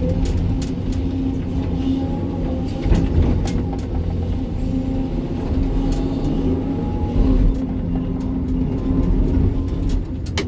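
Sany 305 excavator's diesel engine running under load with a steady drone and whine, over a low rumble, with scattered sharp knocks of rock on steel as it digs and sorts stone.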